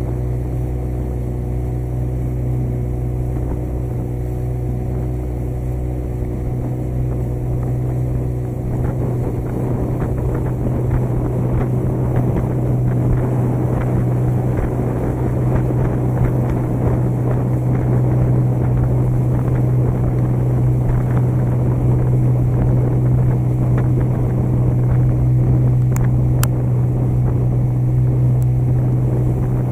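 Small motorboat's engine running at a steady pitch, with a rushing noise growing louder about a third of the way in.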